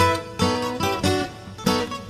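Background music: an acoustic guitar strumming chords and plucking notes, each stroke ringing and fading before the next.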